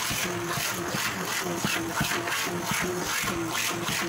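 Electric hand mixer running, its beaters churning through mashed potato in a plastic bowl, with background music with a regular beat playing over it.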